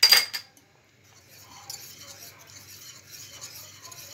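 A sharp metal clink against a saucepan at the start, then a wire whisk stirring béchamel sauce in the metal pan, a steady scraping swish against the pan's bottom and sides.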